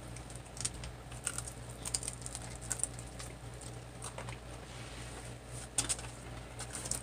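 Eating sounds: scattered small crisp clicks and smacks of chewing and biting into breaded fried chicken wings, over a low steady hum.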